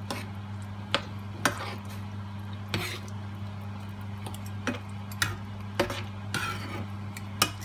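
Metal spoon stirring a thick coconut-milk sauce in a nonstick frying pan, knocking and scraping against the pan about a dozen times at irregular intervals, over a steady low hum.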